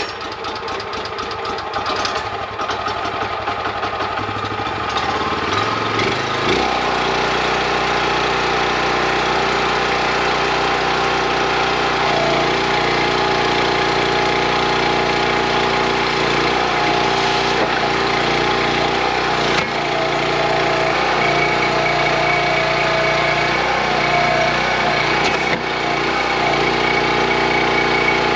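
Small engine of a towable excavator running. It is uneven for the first few seconds, then settles to a steady speed about six seconds in. From about twelve seconds some of its tones shift up and down, as if the engine is loaded while the hydraulics are worked.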